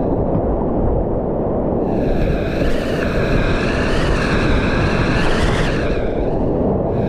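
Loud, steady rush of river rapids and splashing water close to a chest-mounted action camera. It sounds dull and muffled for the first couple of seconds and again shortly before the end, then clear and hissing in between.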